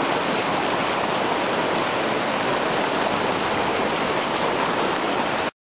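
Whitewater river rapids rushing, a dense, steady noise of churning water that cuts off suddenly near the end.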